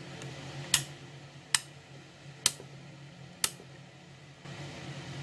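Rotary function switch of an Extech MultiPro 530 multimeter clicking through its detent positions: four sharp clicks about a second apart, over a steady low hum.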